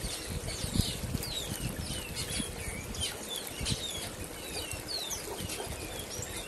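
Small songbirds giving many short, high chirps and twitters over the steady rush of a shallow river running over rocks.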